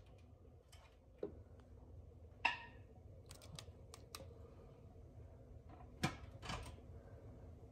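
Metal canning lids on hot glass mason jars of pressure-canned kokanee popping as the jars cool: a scatter of sharp pings and ticks, the loudest about six seconds in, each pop the sign of a lid sealing.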